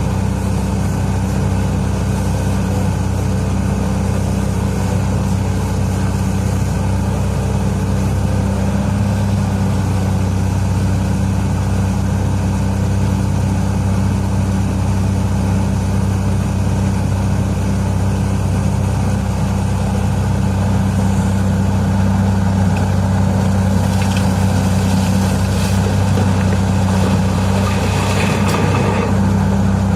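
Heavy mining machine's diesel engine running at a steady, even speed, with some light clatter in the last few seconds.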